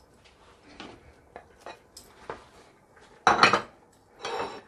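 Kitchenware clinking and knocking against a stainless steel cooking pot as pieces of pomo (cow skin) are tipped in from a bowl: a few light clicks, then a loud clatter with a short ring about three seconds in and a smaller one near the end.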